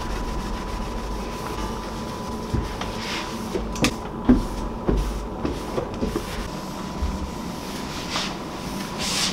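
A cloth wiping a kitchen countertop by hand in swishing strokes, with a few light knocks about four seconds in. A steady hum runs underneath.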